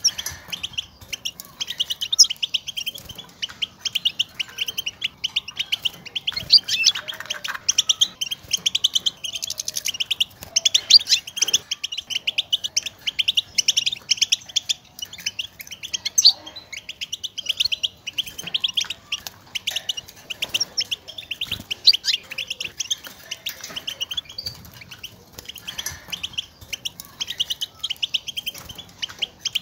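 European goldfinch chattering: a fast, unbroken run of short, high twittering chirps, with louder single notes here and there. This is the 'batbata' contact call that goldfinches use to call to one another and signal where they are.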